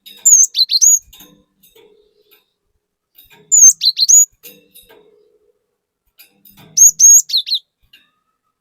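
Cinereous tit (glatik batu) singing three short phrases about three seconds apart. Each phrase is a quick run of high, whistled notes that sweep up and down.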